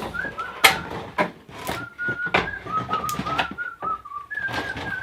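A person whistling a short wandering tune, with several sharp knocks and clatters of parts being handled.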